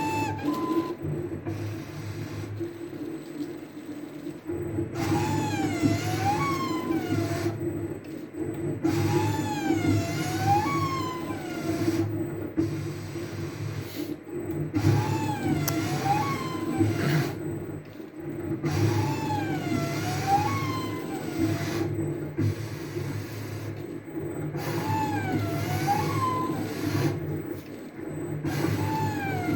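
CNC router axis motors running as the machine traces curves. A steady low hum runs throughout, with a whine that rises and falls in pitch in wavy sweeps, repeating every three to four seconds.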